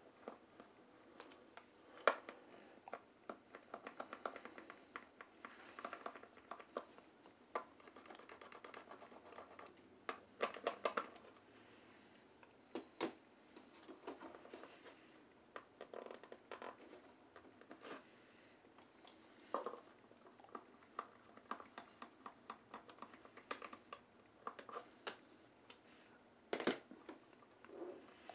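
Fingers rubbing and pressing a pressure-sensitive vinyl decal onto a plastic RC truck chassis: faint scratching and rubbing with scattered small clicks and taps.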